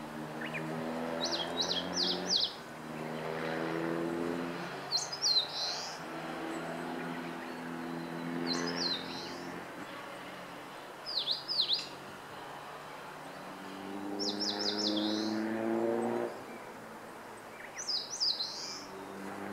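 Eastern crowned warbler singing: six short phrases of quick high notes, some ending in a buzzy downward slur, repeated about every three to four seconds. A low hum swells and fades underneath.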